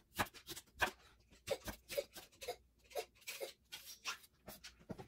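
Chef's knife chopping bell peppers on a wooden cutting board: irregular sharp knocks of the blade striking the board, about two to three a second.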